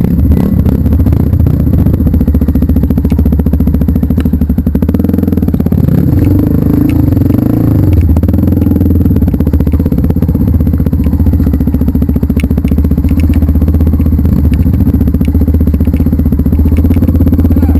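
Off-road trail motorcycle engine running loud and close, its pitch wavering up and down a few seconds in.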